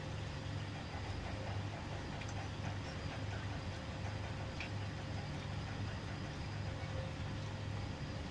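Steady low hum of heavy machinery running, with a faint steady whine above it and a few light ticks.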